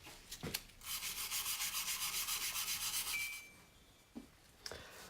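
Scrubbing back and forth on a greasy engine sump coated in degreaser, about four to five strokes a second, stopping for about a second and a half before starting again near the end.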